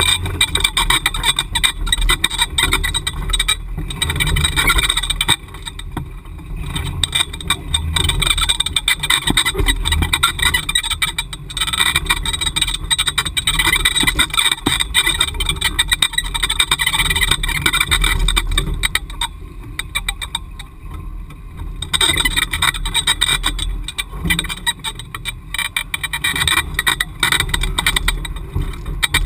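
Ford Bronco's engine pulling at low speed up a rocky off-road climb, a low rumble buried under constant rattling and crackling clatter. The sound eases off briefly twice, about five seconds in and again around twenty seconds.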